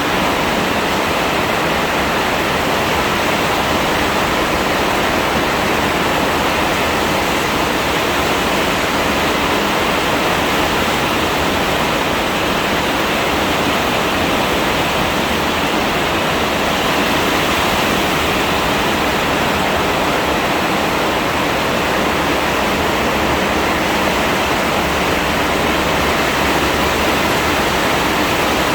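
Heavy rain falling in a steady, dense hiss without a break.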